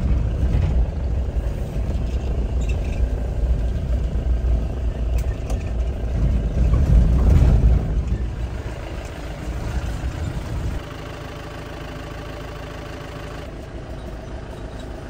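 SUV engine and road noise heard from inside the cabin while driving: a heavy rumble that drops off abruptly about eleven seconds in to a quieter, steady engine hum.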